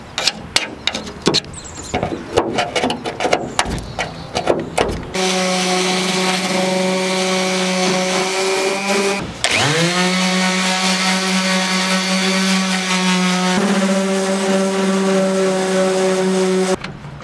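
Handheld electric orbital sander running with a steady motor hum as it sands a pickup's fender flare. About four seconds in it winds down and spins straight back up, and it stops abruptly near the end. The sanding is preceded by a few seconds of irregular scraping and clicking.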